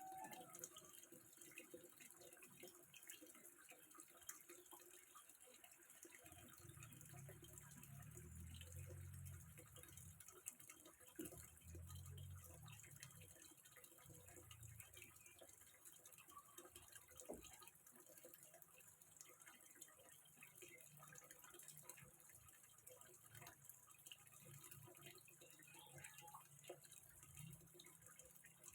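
Water trickling and dripping into a small fish pond, faint, with many small drips and splashes. A low rumble runs beneath it from about six to fifteen seconds in.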